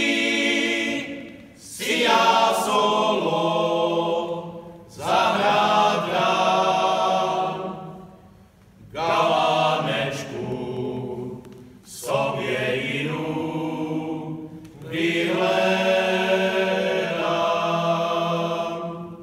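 Men's folk choir singing a Moravian Slovácko folk song a cappella in several-part harmony. The notes are long and held, in phrases of about three seconds with short breaks for breath between them.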